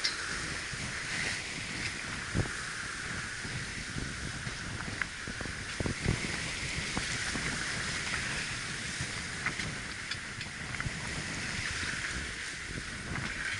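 Steady rush of wind and water around a sailing yacht under way in a choppy sea, with a hissing water sound, wind buffeting the microphone, and a few light knocks scattered through it.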